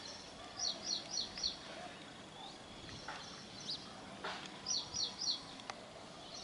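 A bird calling: a quick series of four sharp, high notes about a second in, repeated about five seconds in, with thin high chirps between, over steady outdoor background noise.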